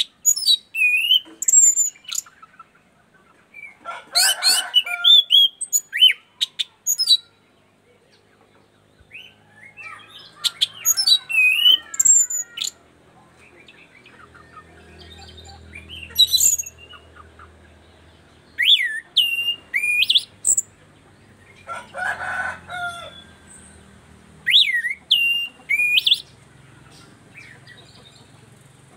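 Caged orange-sided thrush (anis cendana) singing in bursts of varied chirps and whistles with quick rising and falling slides, short pauses between phrases. Two rougher, noisier bursts come about four and twenty-two seconds in.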